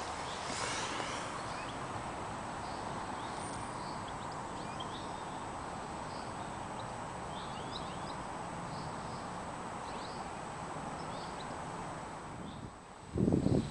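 Outdoor ambience: a steady background hiss with small birds chirping briefly now and then. A loud bump comes right at the end.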